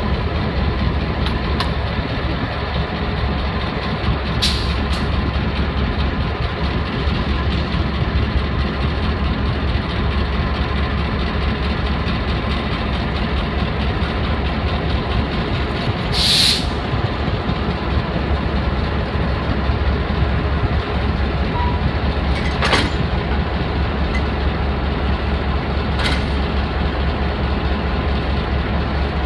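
Diesel locomotive's engine idling with a steady low rumble while it is turned on the roundhouse turntable. Four short hisses of released air break through, the loudest just past halfway.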